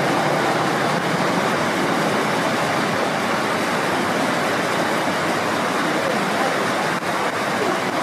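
Rushing mountain stream water, a steady, unbroken rush.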